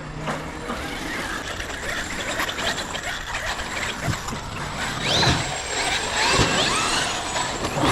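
Electric RC cars running: motors whining up and down in pitch over a steady gear and drivetrain rattle, with a few dull thumps in the second half.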